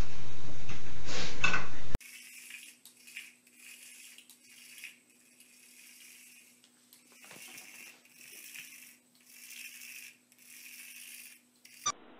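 A loud clattering noise for about two seconds as a cat shoves through a cat flap, then a soft jingling rattle repeating about once a second from a cat toy being pawed about on a tile floor, over a faint steady hum.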